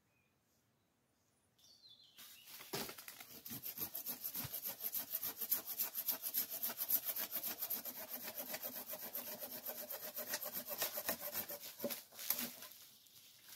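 Hand saw cutting through a thin fallen log in quick, even back-and-forth strokes. The sawing starts about two seconds in and pauses briefly near the end.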